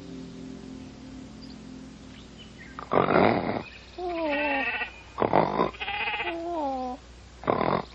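Cartoon sound effects: after a quiet first few seconds, three short noisy bursts alternate with two wavering, falling animal-like cries.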